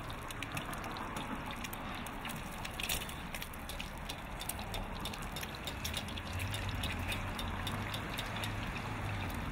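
An egg deep-frying in hot oil in a wok, sizzling steadily with many small crackles and pops. A low hum joins about six seconds in.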